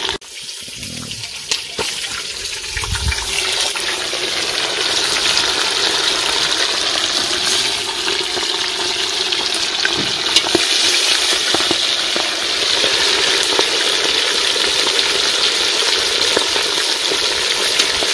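Barracuda pieces deep-frying in hot oil in an aluminium pot: a loud, steady sizzle that builds over the first few seconds and then holds, with a few sharp pops.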